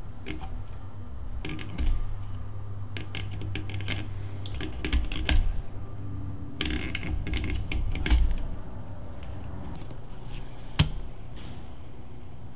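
Hand saddle-stitching leather: needles pushed through the stitching holes and waxed thread drawn tight, in short bursts of rustling and ticking clicks every second or two over a low steady hum. One single sharp click near the end.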